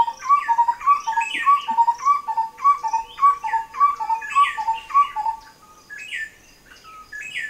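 Wild birds calling: a quickly repeated series of short notes, about three a second, under higher chirps that fall in pitch. The calling thins out to a few scattered chirps after about five seconds.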